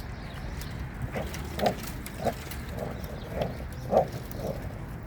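A dog growling in short bursts, about two a second, while it holds onto a toy it won't give up.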